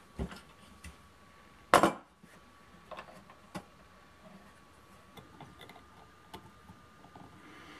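Small clicks and knocks of a circuit board being handled and pushed into a plastic clip holder, with one much louder knock just under two seconds in, over a faint steady high hum.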